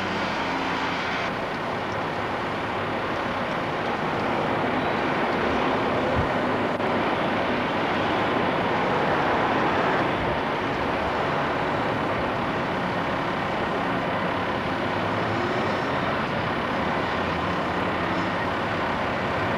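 Crane engine running steadily, under a dense rushing noise, while stone pieces are lifted into a truck. It swells slightly in the middle and eases off about ten seconds in, heard through an old VHS camcorder's microphone.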